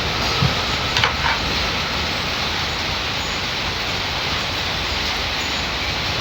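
Steady hiss of heavy rain, with a couple of short clinks about a second in.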